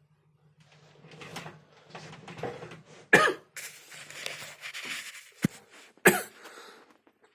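A person coughing: two loud coughs, about three and six seconds in, with quieter breathy, throaty noise between them and a sharp click just before the second cough.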